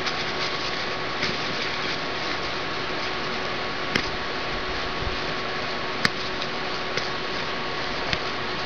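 Paper towel rustling and rubbing as a plastic paintball hopper part is wiped out, over a steady room hiss, with a few light clicks, the sharpest about four and six seconds in.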